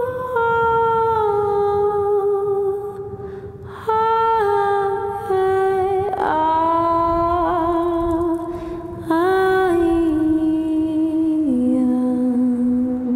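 A single voice humming a slow, wordless melody in long held notes, each phrase sliding and stepping lower in pitch.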